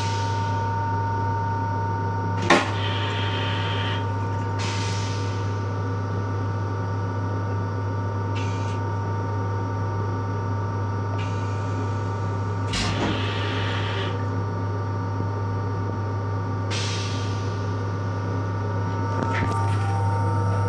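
Toilet in an M7 railcar restroom flushing: a sharp clack about two and a half seconds in, then several short hissing spurts as water rinses the stainless bowl, over the car's steady hum.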